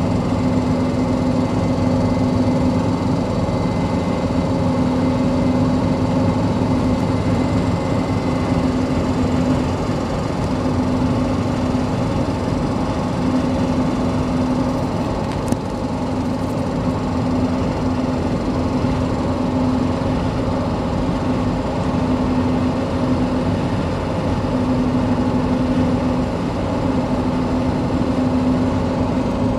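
Toyota Prado's 1KZ-TE 3.0-litre four-cylinder turbo-diesel running steadily on the move, under a loud hum from mud-terrain tyres on the road that swells and fades every couple of seconds. The engine has a ticking that worries the owner.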